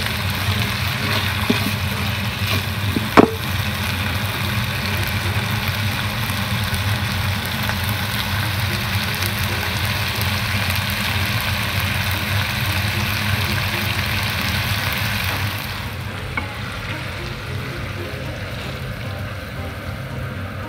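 Squid and bell peppers sizzling in a hot frying pan as they are stirred with a slotted spatula, with one sharp clack of the spatula on the pan about three seconds in. The sizzle fades over the last few seconds, leaving a steady low hum.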